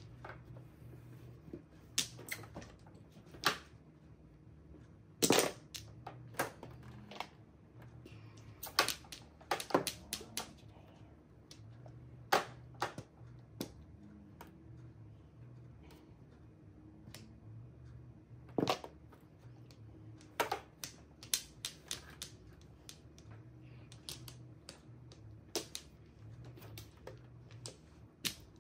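Mahjong tiles clacking on the table during play: sharp clicks at irregular intervals, some in quick pairs, with gaps of several seconds between them.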